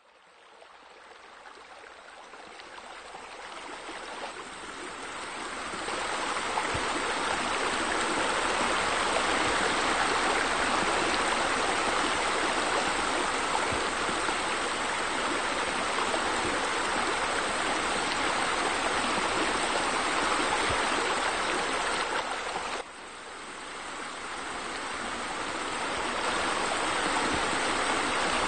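Rushing water of a pool's rock waterfalls, a steady splashing that fades in from silence over the first few seconds, drops abruptly about 23 seconds in, and swells back up.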